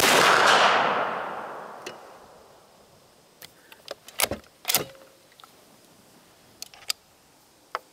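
A single shot from a Savage 220 bolt-action 20-gauge shotgun firing a sabot slug, its report dying away over about two seconds. A few short clicks and knocks follow a few seconds later.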